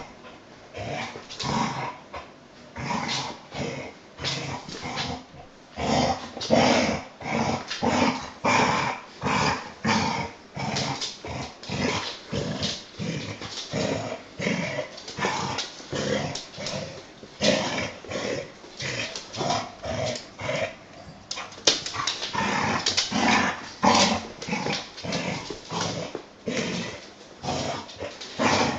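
A dog vocalising in a long, unbroken run of short calls, two or three a second, a growly, Chewbacca-like yowling.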